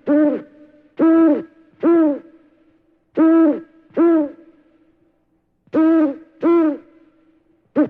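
A bird calling repeatedly: about eight short notes, each rising and falling in pitch, coming in runs of two or three with pauses between, over a faint steady hum.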